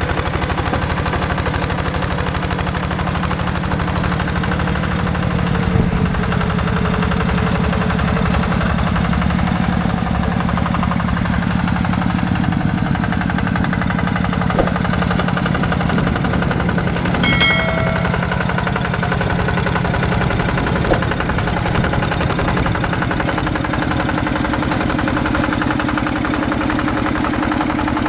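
Single-cylinder diesel engine of a walking tractor with a rotary tiller, running steadily under load with a rapid, even pulse of firing strokes. A short high tone sounds briefly about two-thirds of the way through.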